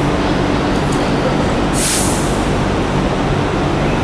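Steady workshop machinery hum with a low drone, and a short hiss of air about two seconds in.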